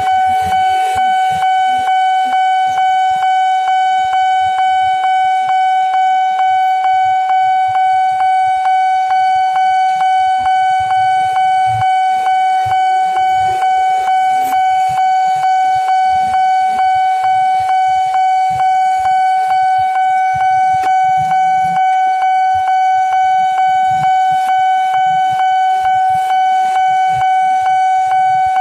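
Electronic level-crossing warning alarm at a railway crossing sounding continuously: one steady tone pulsing about twice a second, signalling that a train is approaching and the crossing is closed.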